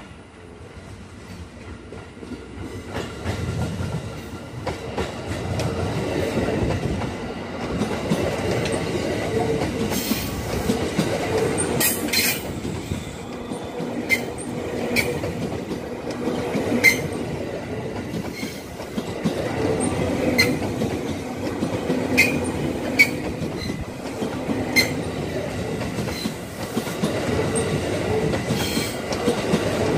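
KRL Commuter Line electric commuter train approaching and then passing close by: a rumble of wheels on rail that grows louder over the first few seconds and stays loud, with sharp clicks as the wheels cross rail joints.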